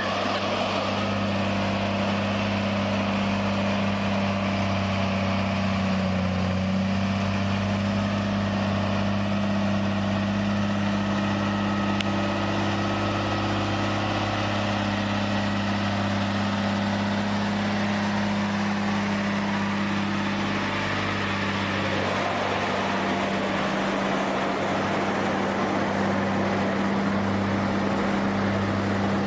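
Truck engine idling steadily, a constant low hum that holds one even pitch throughout.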